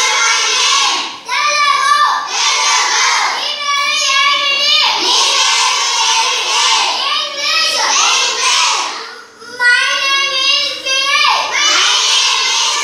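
A class of children chanting phrases aloud together in a loud, sing-song chorus, with short breaks between phrases.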